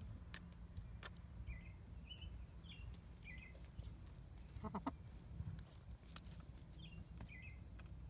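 Backyard hens pecking at a hollow wooden treat log, with scattered light clicks of beaks on wood and a few brief high chirping notes. About five seconds in, a hen gives a short pulsed cluck.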